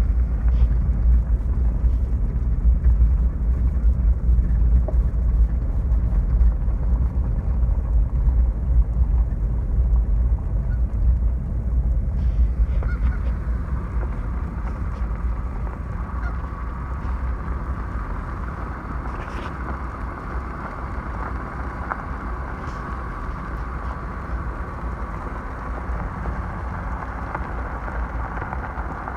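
Steady low rumble of wind and rushing runoff water, with geese honking from about halfway through.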